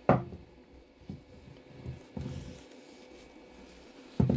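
Tissue wiping and rubbing inside a resin 3D printer's plastic vat as it is cleaned with alcohol, with handling knocks from the vat. The loudest knock is just at the start and another is near the end.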